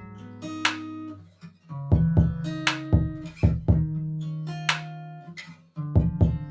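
Background music: plucked guitar notes over sustained low bass tones, with bright high accents between them.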